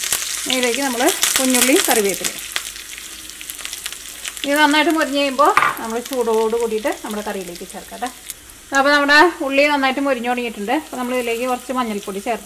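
Chopped onion and green chilli sizzling in hot oil in a small iron tempering pan, with a spoon stirring them. A pitched, wavering sound comes and goes over the sizzle and is loudest in the second half.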